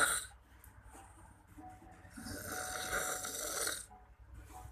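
Snoring: a long, noisy snore about two seconds in, with the tail of the previous snore at the very start and a quiet gap between breaths.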